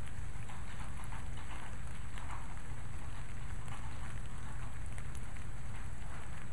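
Steady rain falling, with many individual drops pattering on surfaces, over a constant low rumble.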